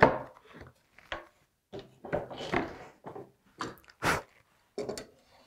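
A wooden board set down on a wooden workbench with a knock, followed by a string of short clatters and scrapes as a hand tool is picked up and put to the board's edge; the sharpest knock comes about four seconds in.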